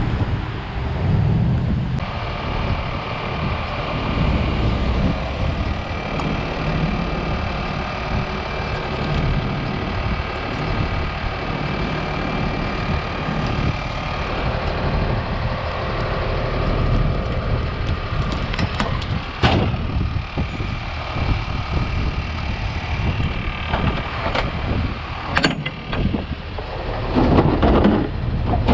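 Truck engine running steadily under wind and traffic noise, with a faint steady whine, and a few sharp metallic knocks in the last ten seconds.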